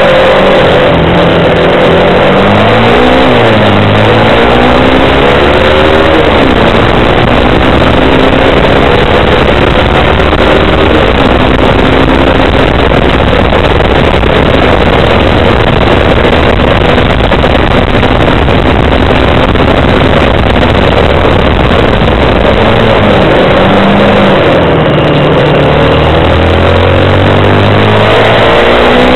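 Kymco Quannon 125 motorcycle's single-cylinder four-stroke engine under way, its pitch rising and falling as it accelerates and eases off, most clearly in the first few seconds and again near the end. A loud, steady rush of wind and road noise covers it through the middle stretch.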